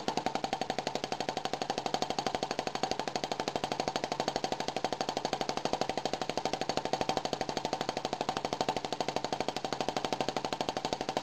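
Small Paradox gas engine running steadily with its open ignition flame: a rapid, even puffing beat.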